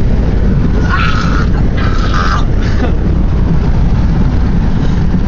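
Steady engine and road rumble inside a moving pickup truck's cab, with three short higher-pitched sounds in the first three seconds.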